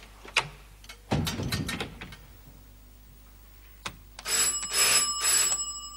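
A door shuts with a low thud about a second in. Near the end an electric doorbell rings for about a second and a half, in three swells.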